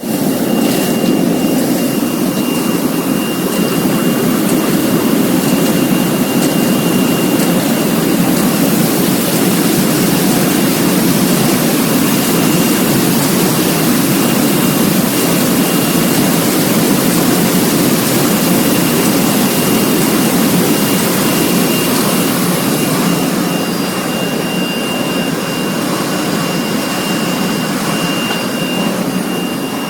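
Leafy-vegetable washing machine running: a loud, steady rushing noise with a thin high whine over it. The high hiss eases slightly about three quarters of the way through.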